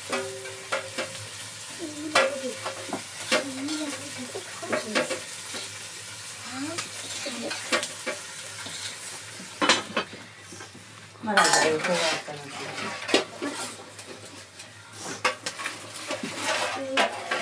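Metal pots, lids and ladles clanking and scraping in frequent sharp knocks, some briefly ringing, over a steady hiss of food frying in a pot, with a busy burst of clatter about two-thirds of the way through.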